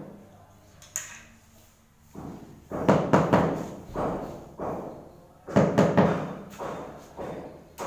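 Rubber mallet tapping large ceramic floor tiles down into their mortar bed to set them level: a single knock about a second in, then quick clusters of dull knocks from about two seconds in.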